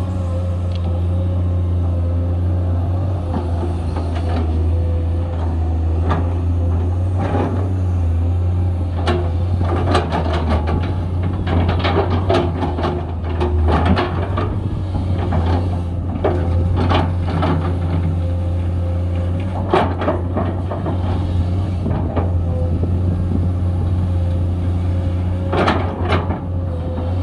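Komatsu 210 excavator's diesel engine running steadily under load while it digs, with a scatter of knocks and clanks from about nine seconds in.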